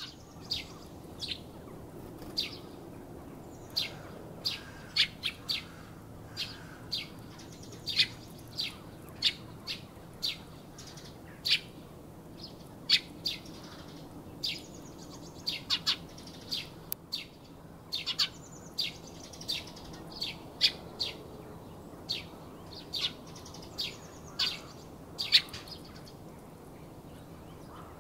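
Eurasian tree sparrow chirping: short, sharp chirps repeated irregularly, often about a second apart and sometimes in quick pairs or clusters, over faint low background noise.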